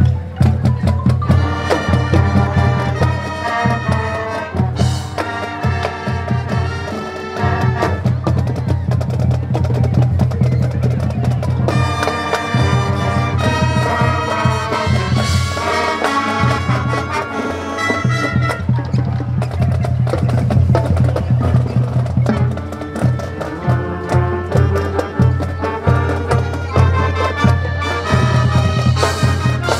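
High school marching band playing: brass and wind instruments carrying a melody over drums keeping a steady beat.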